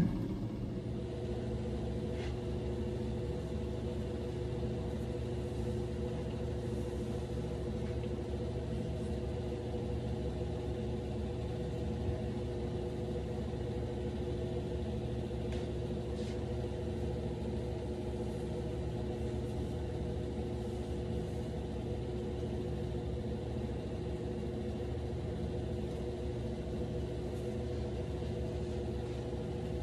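Steady low mechanical hum with a few steady tones over a rumble, unchanging throughout.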